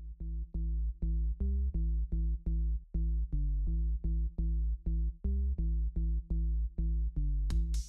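Background electronic music: a pulsing bass line of about four notes a second with the drums dropped out, the full drum beat coming back in near the end.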